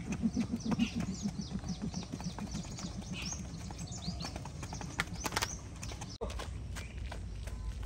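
Heavy battle ropes being whipped up and down, slapping the asphalt in a quick, even rhythm of several thuds a second. The slaps are loudest in the first few seconds and grow fainter after that.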